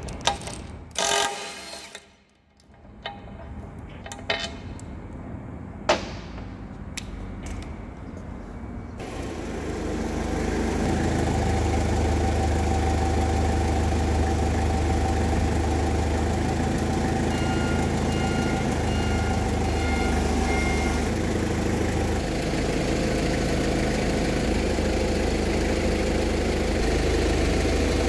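A few sharp knocks and clicks, then a steady engine running at idle for the rest of the time, with a short series of high beeps in the middle.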